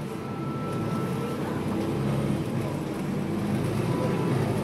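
Double-decker bus's diesel engine running as the bus drives along: a steady low drone heard from the rear of the lower deck, close to the engine.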